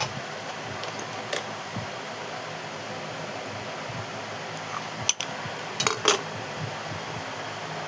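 Steady fan-like running noise, with a few sharp clinks of dishes: one near the start, one about a second and a half in, and a quick cluster around five to six seconds in.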